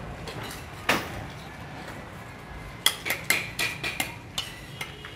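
Hollow fired-clay bricks knocking and clinking against one another as they are handled and set down in a course on the wall. There is one sharp knock about a second in, then a quick run of clinks from about three seconds in.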